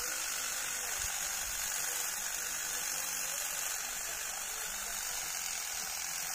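Corded electric hedge trimmer running steadily while its blades clip the top of a pine tree.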